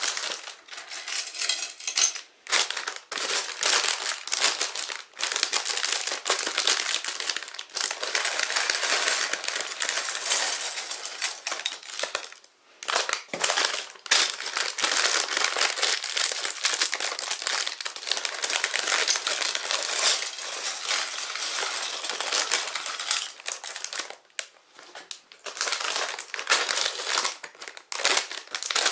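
Plastic bags of Sluban building bricks crinkling as they are handled, with small plastic bricks clattering and rattling onto a porcelain plate. The crinkling and clatter are irregular, with a few brief lulls.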